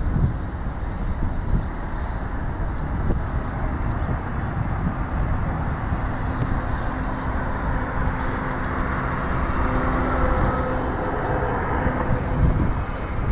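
McDonnell Douglas MD-83 airliner's rear-mounted Pratt & Whitney JT8D turbofans running loud and steady as the jet rolls out on the runway after landing, with a steady low tone over the roar for several seconds in the middle.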